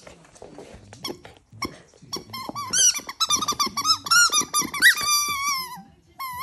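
Squeaky toy ball being chewed by a Lhasa Apso, squeaking rapidly over and over and ending in one long squeak that falls in pitch. A few soft clicks and knocks of the dog mouthing the ball come before the squeaking starts, about two seconds in.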